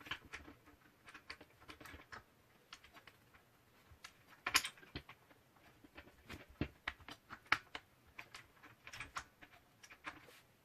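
Irregular light clicks and taps of objects being handled, with one sharper knock about four and a half seconds in.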